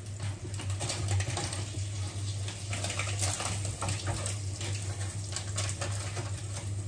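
Flour-dredged fish pieces sizzling and crackling in hot oil as they are laid into a parchment-lined frying pan, over a steady low hum.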